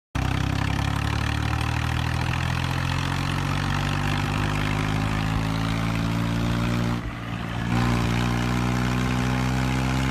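John Deere 5210 tractor's diesel engine running steadily while pulling a cultivator, its pitch drifting slightly. The sound drops briefly about seven seconds in, then comes back a little louder.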